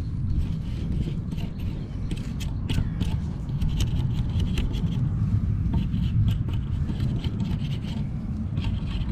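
Knife scraping the spines off a wild thistle stem: a run of short, scratchy strokes, over a steady low rumble.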